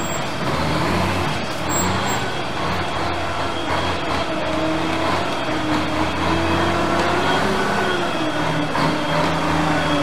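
Road vehicle engine running steadily over road noise, its pitch slowly rising and falling.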